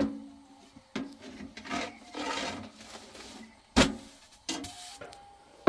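Long wooden rolling stick rolling and rubbing over thin flatbread dough on a wooden board, with sharp wooden knocks as the stick is set down or strikes; the loudest knock comes about four seconds in.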